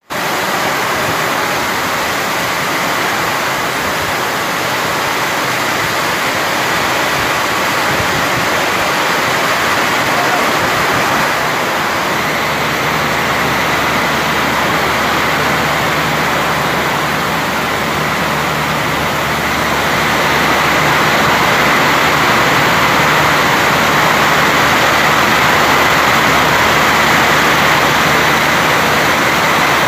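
Heavy monsoon rain with wind: a loud, dense, steady hiss of a downpour. About twelve seconds in, a low steady hum joins underneath, and the rain grows a little louder near the twenty-second mark.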